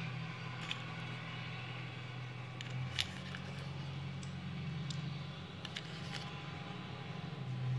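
A steady low hum with a few light clicks and taps over it, one sharper click about three seconds in.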